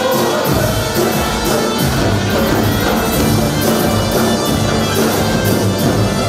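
Music with drums and a steady beat.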